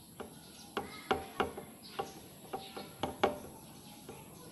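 Metal parts and hand tools clinking and clicking, about a dozen sharp knocks at uneven intervals, some with a brief ringing tone.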